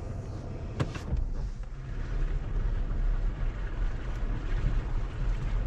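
Off-road vehicle engine running with a steady low rumble, with a single knock about a second in.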